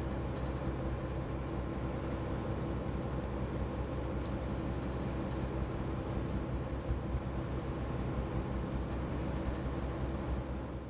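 Steady low drone of a ferry's diesel engine running at cruising speed, an even hum under a haze of noise.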